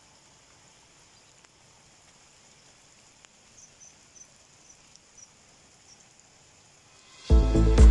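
A very quiet stretch with a few faint, high chirps a little past the middle; loud electronic music with a steady beat cuts in abruptly near the end.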